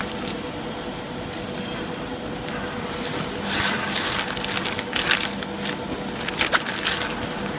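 Steady hum of a plastic film blowing machine's motor-driven take-up rollers. From about three seconds in come irregular bursts of crackling and rustling plastic film as it is handled at the rollers, the sharpest near the end.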